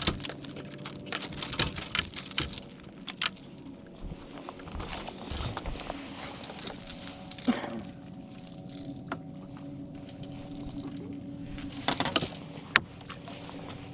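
Steady electric hum of a bow-mounted trolling motor, with scattered light clicks and knocks from tackle and footsteps on the boat deck, thickest in the first few seconds and again near the end.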